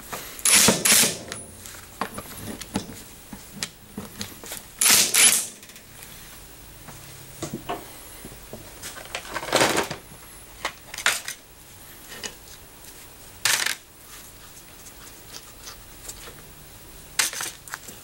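Cordless impact wrench hammering in short bursts on the nuts of a 1941 South Bend lathe's cast-iron gear train bracket, twice in the first six seconds. Loose steel parts clink and knock, with further short sharp bursts later on.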